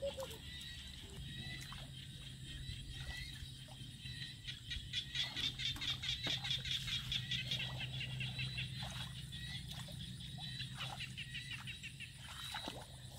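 Frogs calling in a rapid, pulsing chorus that swells in the middle and eases off towards the end, over a steady low hum. A few small splashes come as hands move through shallow muddy water.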